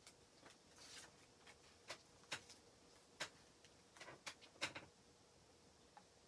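A thin adhesive stencil transfer sheet being trimmed and peeled from its backing by hand: scattered faint sharp clicks and crackles, the loudest between about two and five seconds in.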